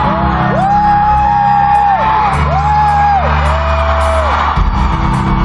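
Live pop-rock band playing, heard loud through a phone's microphone from the audience. A steady heavy bass runs under a string of long held notes that slide up into each note and down out of it.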